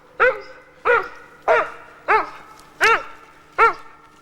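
A dog barking steadily, six barks at an even pace of a little over one a second, each a short pitched bark that rises and falls.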